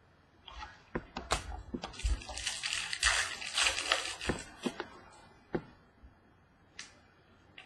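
Trading cards and a hard plastic card holder being handled on a table. There is a run of clicks and taps, a dense rustling stretch in the middle, then a few scattered taps.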